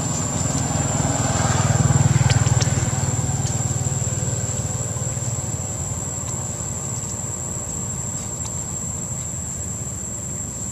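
A motor engine running, swelling about two seconds in and then slowly fading, with a steady high thin tone throughout.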